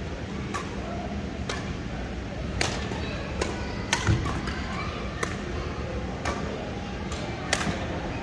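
Badminton rally: rackets hitting the shuttlecock with sharp cracks about once a second. About four seconds in comes the loudest hit, with a low thud as a player lands from a jump smash.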